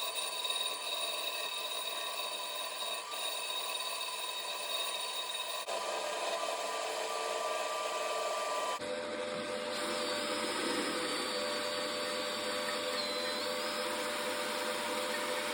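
An electric hand drill driving a manual lathe's cross-slide feed for a facing cut, with the lathe running: a steady motor whine with several steady tones. The sound changes abruptly about nine seconds in, and one high tone shifts in pitch a little later.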